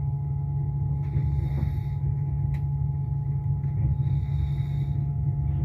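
Steady low rumble of a moving passenger train, with a constant hum of a few steady tones and a soft hiss that comes and goes every couple of seconds.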